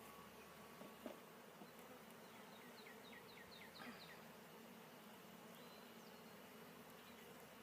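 Faint steady hum of honey bees buzzing around an open hive. A run of short, high, repeated chirps comes in briefly about three seconds in.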